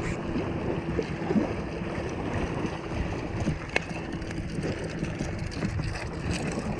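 Small waves lapping at the water's edge with wind on the microphone, under a faint steady hum.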